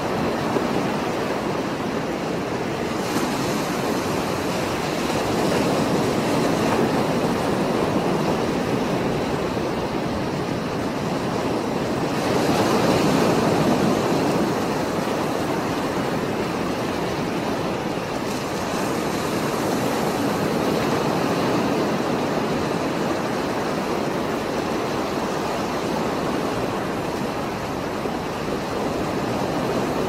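Rough sea surf breaking on a rocky shore: a continuous rush of water that swells and eases every few seconds, loudest near the middle.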